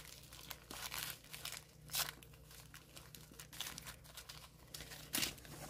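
Small plastic zip-lock bags of diamond painting drills crinkling and rustling as they are handled and shuffled. The crackle is irregular, with louder crinkles about two seconds in and again near the end.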